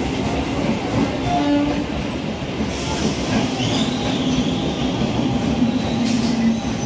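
Electric multiple-unit (EMU) suburban local train running along the platform: a steady, loud rumble of wheels on rail, with a faint high squeal about three seconds in.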